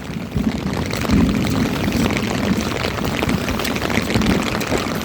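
Heavy rain falling with strong gusting wind buffeting the microphone.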